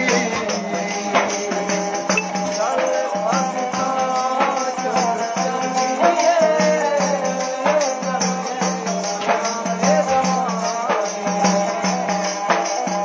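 Devotional folk music between verses of a Navratri bhajan. A steady low drone holds under a wavering melody line, with quick, dense percussion strokes throughout.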